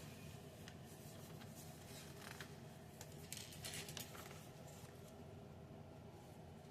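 Faint clicks and rustles of plastic Lego bricks being handled and pressed together, a few scattered taps with a short cluster around the middle, over a low room hum.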